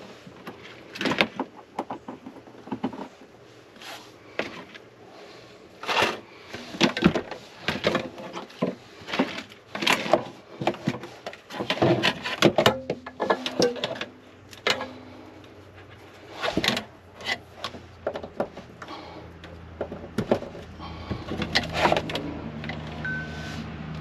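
Irregular clunks, knocks and rattles of hands working cable and small hardware on a metal slide-out fridge rack. A steady low hum comes in about three-quarters of the way through.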